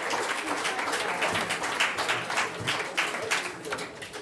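Audience applauding, many hands clapping densely together, fading out near the end.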